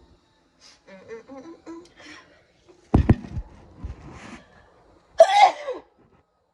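A person sneezing: wheezy, voiced in-breaths build up, then two loud sneezes, one about three seconds in with a heavy blast into the microphone and another a little after five seconds.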